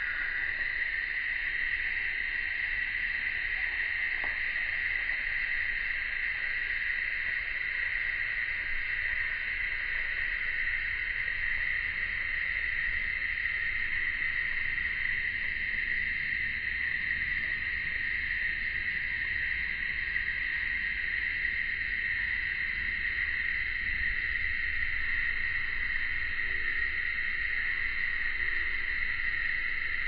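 Insects buzzing in a steady, unbroken high-pitched chorus.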